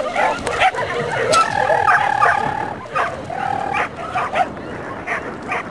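Small dog barking and yipping in quick, repeated bursts while running, with a couple of longer drawn-out cries in the middle.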